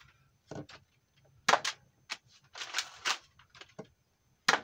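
X-Shot Max Attack foam dart blaster being fired: several sharp snaps, the loudest about a second and a half in and again near the end.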